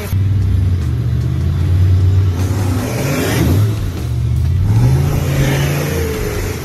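Nissan Safari 4WD engine revving up and down as it drives through a muddy bog. Its pitch rises and falls several times, climbing about five seconds in.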